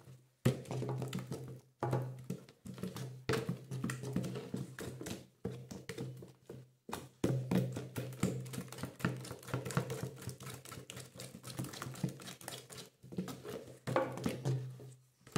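Wooden spoon scraping and knocking against the sides of a plastic bucket as a thick homemade soap paste is stirred hard, in quick irregular strokes with a few brief pauses.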